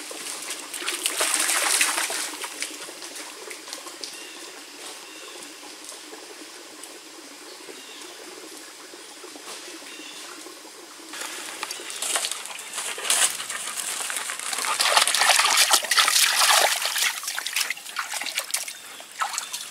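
Shallow rocky creek trickling steadily over stones, with louder bursts of noise about a second in and again through much of the second half.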